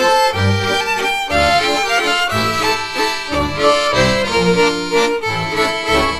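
Instrumental break of a Polish highlander (góral) folk song: accordion and fiddle playing the melody over a low bass note that pulses about once a second.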